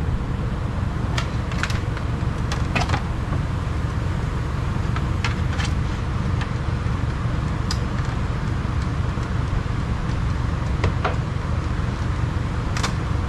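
Scattered light clicks and snaps of plastic door trim on a 1999 Ford Ranger door being handled and worked loose, about ten in all, over a steady low rumble.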